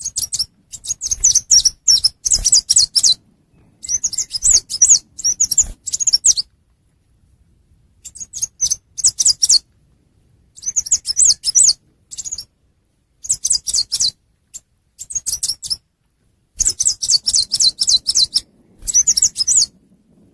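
Recorded song of a chim sâu xanh tím, a small Vietnamese songbird, played as a trapping lure. It comes as phrases of rapid, high twittering chirps, each one to two seconds long, separated by short pauses.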